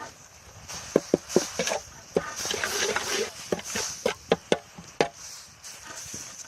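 Knife chopping on a wooden board, about a dozen irregular strikes, as for mincing meat for laab.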